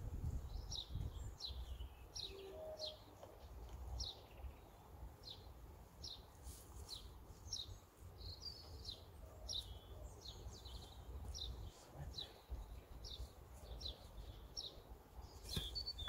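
A small bird chirping over and over in short, high, falling notes, about two a second, over a low background rumble.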